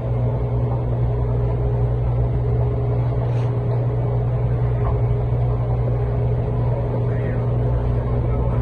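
A steady, low, engine-like hum at an unchanging pitch, with a faint noisy background.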